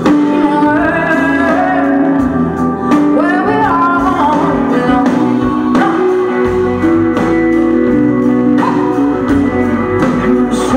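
Live band playing a song: singing over guitar, bass and drums, heard from the audience in a concert hall.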